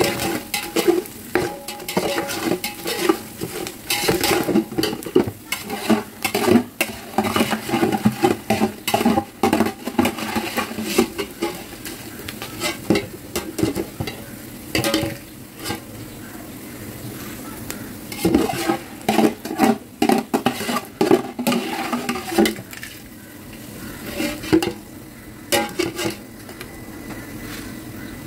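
Metal slotted skimmer scraping and knocking against a stainless steel pot while gond (edible gum) fries and puffs in hot ghee with a sizzle underneath. The scrapes and taps come irregularly, easing off for a few seconds about two-thirds of the way through, when mostly the sizzle is left.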